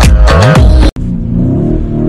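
Electronic dance music with a heavy beat stops abruptly just under a second in. It gives way to a Lamborghini Urus's twin-turbo V8 heard from inside the cabin, its revs rising and falling while drifting on snow.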